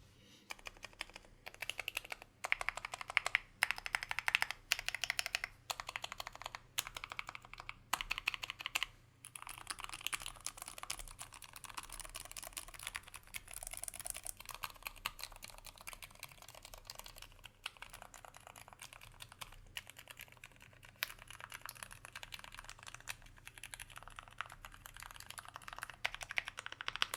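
Typing on an SP-111 split southpaw mechanical keyboard with a brass plate and Roselios silent linear switches lubed with Krytox 105: a steady run of quick, muted keystrokes, so quiet, with a short pause about nine seconds in.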